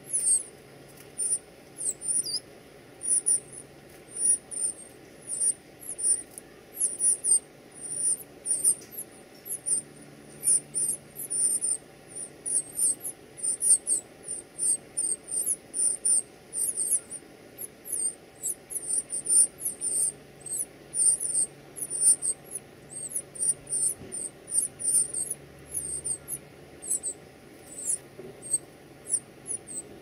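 Northern cardinal nestlings begging: an unbroken stream of thin, very high-pitched short chirps, several a second.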